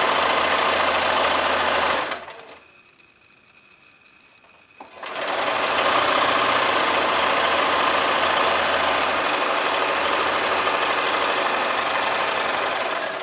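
Electric sewing machine stitching a seam through cotton fabric: it runs steadily for about two seconds, stops for about three seconds, then starts again and runs steadily for about eight seconds.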